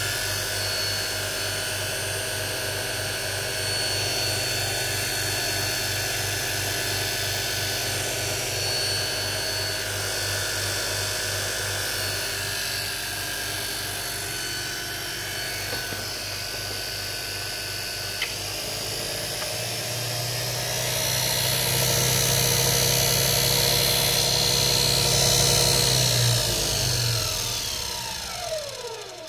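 Electric motor belt-driving a Jawa/ČZ motorcycle dynamo on a test bench, running steadily with a hum and a whine. It gets louder about two-thirds of the way through, then winds down, its pitch falling, and stops at the end.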